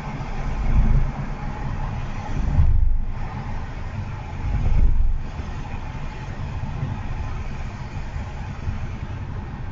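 Honda HR-V e:HEV hatchback driving along a road: a steady rumble of tyre and road noise, swelling a few times.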